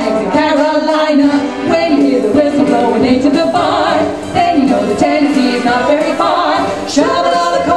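Two women singing together into microphones, amplified through a PA speaker, with a couple of long wavering held notes.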